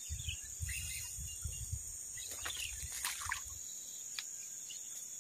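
Steady high-pitched insect drone with scattered short bird chirps. Low rumbling bumps of wind or handling on the microphone fill the first three and a half seconds.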